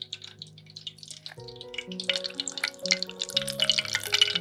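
Hot oil crackling and spitting as battered zucchini rolls deep-fry. The crackle is faint at first and becomes dense and loud about a third of the way in. Background music with slow held notes plays underneath.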